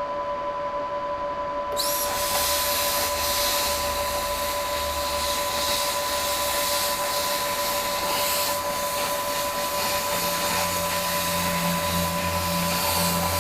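Plasma cutter cutting steel plate: a loud, even hiss of the arc and air that starts suddenly about two seconds in and runs on steadily, over two steady high tones.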